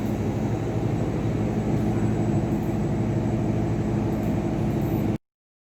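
Diesel engine running steadily at constant speed, ending abruptly a little after five seconds in.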